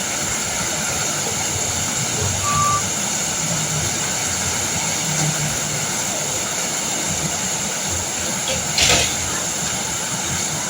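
Heavy rain pouring steadily, with a sudden louder burst of noise about nine seconds in.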